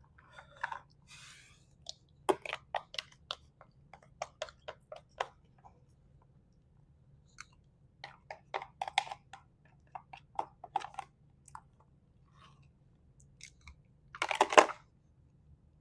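A person chewing food close to the microphone: two runs of quick, crunchy mouth clicks, with a short louder burst of noise near the end.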